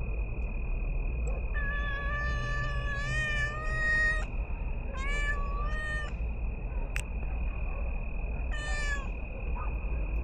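A domestic cat meowing: one long drawn-out meow, two short ones, then another near the end, with a steady high-pitched drone underneath throughout and a single sharp click about seven seconds in.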